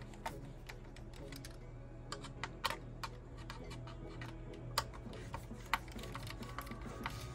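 Irregular light clicks and ticks of a screwdriver turning a small screw through a fiberglass mounting plate into a plastic RC car chassis, with a few sharper clicks around the middle.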